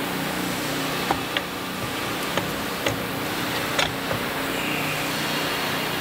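A handful of short metallic clicks and clinks, about six, from parts being handled and fitted at an electric bike's rear wheel hub, over a steady background hum.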